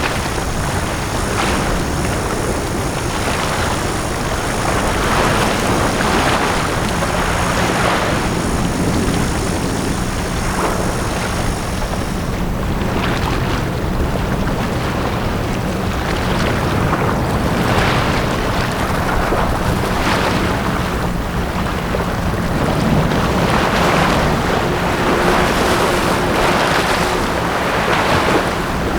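Small sea waves washing onto a beach, each breaking and rushing in every couple of seconds over a continuous wash of surf. A steady low hum runs underneath, and a high, steady whine stops about twelve seconds in.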